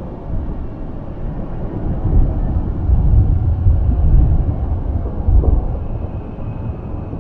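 Rain ambience recording, a steady noise dominated by a deep rumble that builds about two seconds in and eases off near the end.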